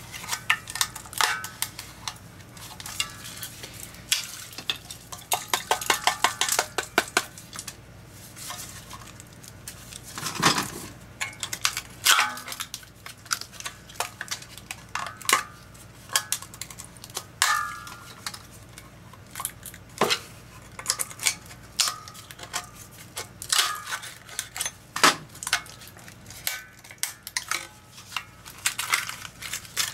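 Metal pliers and broken pieces of a dead carbon-zinc lantern battery clinking and scraping on a metal tray in irregular clatters, as the corroded casing is broken apart. About four to seven seconds in there is a quick run of rattling taps.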